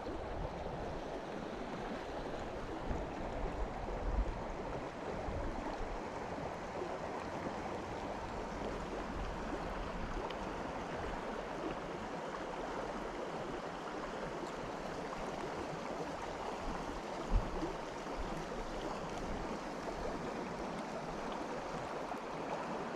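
Small creek running over rocks, a steady even rush of water, with a few faint knocks, the sharpest about three-quarters of the way through.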